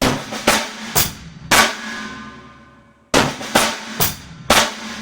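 Drum kit playing a short four-stroke fill taken from the six-stroke roll, snare with hi-hat and kick, played slowly twice: four hits about half a second apart, then the drums ring out before the phrase repeats.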